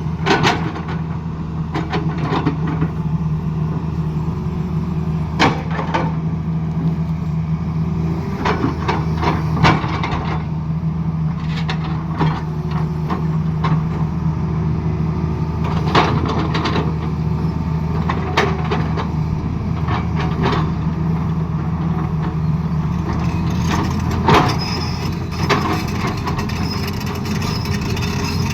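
Heavy diesel engine of an excavator running steadily, with irregular sharp knocks and clanks every few seconds.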